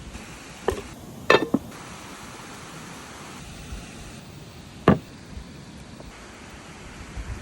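Cooking gear knocking and clinking: four short, sharp knocks, three close together in the first two seconds and one near five seconds in, over a steady hiss.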